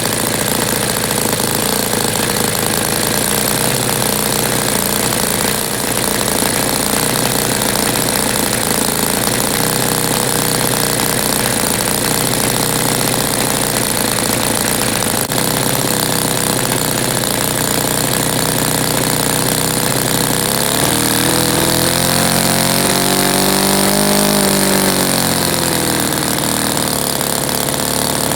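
Saito FA-120S four-stroke model aircraft glow engine running steadily on a test run, revved up about three-quarters of the way through and then brought back down.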